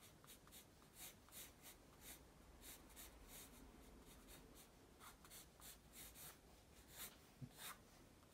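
Graphite pencil sketching on paper: faint, quick scratchy strokes, about two or three a second.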